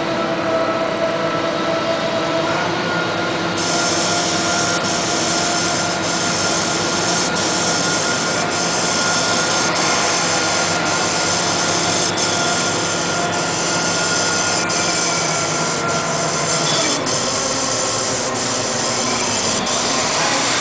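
Facade paint-spraying equipment running steadily: a motor drone with a hiss. A light tick repeats about three times every two seconds from a few seconds in.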